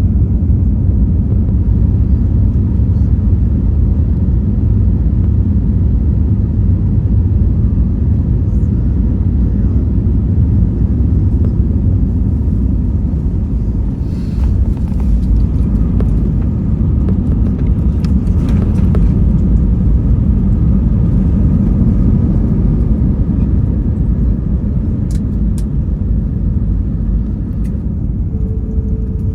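Steady low rumble of jet engines and airflow heard inside an airliner's cabin, with a stretch of louder hiss around the middle and a few faint clicks.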